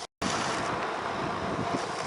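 Wind buffeting the microphone over steady rolling noise from a bicycle in motion, with a few faint ticks, after a split-second gap of silence at the very start.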